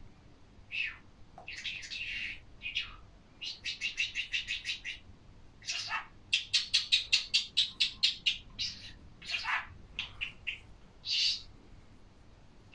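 Budgerigar chirping and chattering, with two quick runs of short repeated notes, about seven a second, in the middle.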